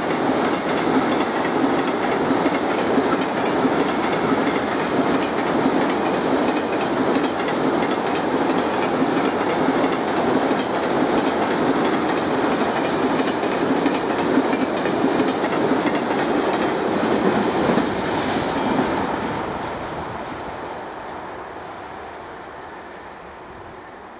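Freight train of open-top wagons rolling past at speed, wheels giving a steady clickety-clack over the rails. The sound fades away after about 19 seconds as the last wagon passes.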